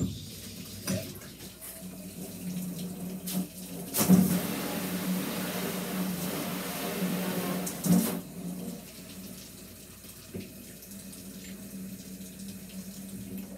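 Water running from a bathtub tap, heaviest between about four and eight seconds in and then running more gently, over a steady low hum.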